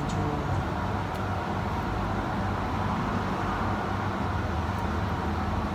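Steady low rumbling background noise with a faint low hum, and a few faint clicks of a metal spoon against the batter bowl.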